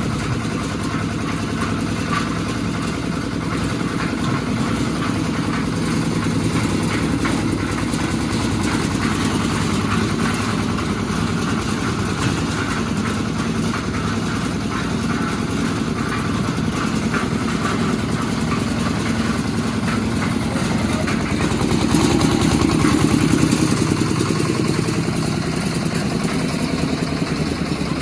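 An engine running steadily at an even idle-like speed, getting a little louder for about two seconds late on.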